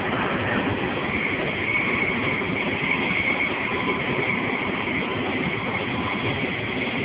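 Passenger coach of an InterCity train running at speed, heard from inside: a steady, loud rumble of wheels on the rails, with a constant hiss of rushing air over it.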